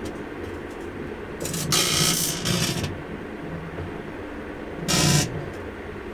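Electrical arcing inside a running microwave oven: a cluster of crackling spark zaps lasting over a second from about one and a half seconds in, then a shorter, louder zap about five seconds in, over the steady hum of the microwave's fan.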